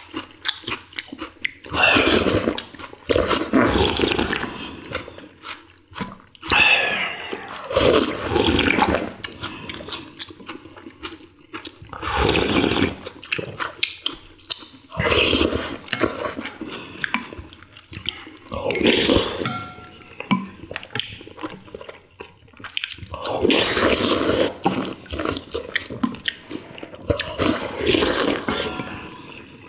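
People slurping thin noodles and broth from bowls of chicken ginseng soup: loud, wet slurps lasting about a second or two each, coming again and again with quieter chewing in between.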